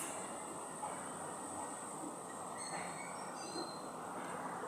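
Steady outdoor background noise with a thin, steady high whine and a few faint, short, high chirps about midway through.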